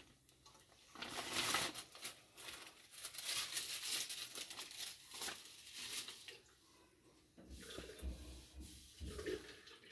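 Faint crackling and crinkling as a flour wrap warms on a hot nonstick tawa. About two-thirds of the way in, it gives way to soft rustles and low thuds as a hand presses and turns the wrap on the pan.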